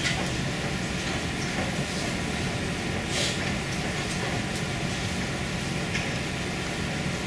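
Steady hum and hiss of classroom room tone, with a brief faint rustle about three seconds in.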